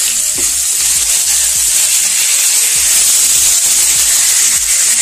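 Tandoori-marinated chicken legs sizzling steadily in mustard oil and butter in a grill pan, as one is turned over with a spatula to brown its other side.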